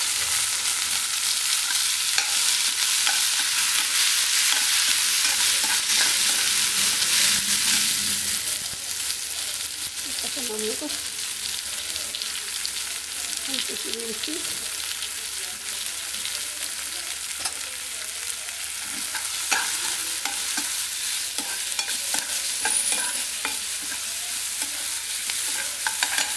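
Chopped onion, tomato and capsicum sizzling in hot oil in a non-stick kadai while a steel spoon stirs them, scraping and tapping against the pan. The sizzle is steady and eases slightly after about nine seconds.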